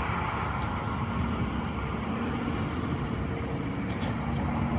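Steady noise of road traffic, cars passing on the road.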